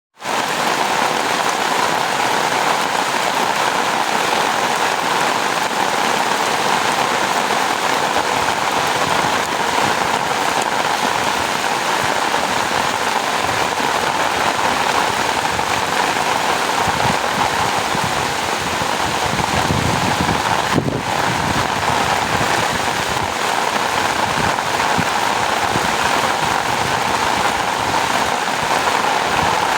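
Steady rain falling on rice paddies: a dense, even hiss of drops, with a brief low rumble about two-thirds of the way through.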